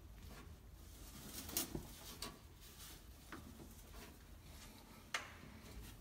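A few faint, short clicks and scrapes of plastic as the tight-fitting top of a PVC in-line condensate float switch is twisted and pulled loose by hand.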